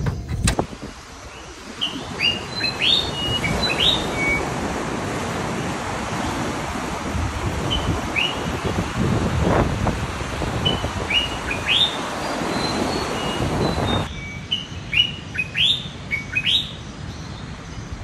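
Small birds chirping in short rising and falling calls every few seconds, over a steady rush of breaking surf that cuts off abruptly about fourteen seconds in.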